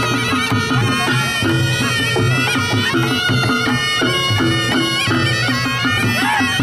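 Reog Ponorogo gamelan playing: the nasal, wavering melody of a slompret (shawm) held over a driving, repeating rhythm of kendang drums and gongs.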